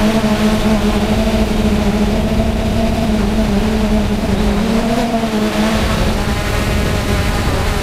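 Quadcopter drone's motors and propellers humming steadily, picked up by the camera on the drone itself, with wind rumbling on the microphone. The hum's pitch wavers a little about five seconds in.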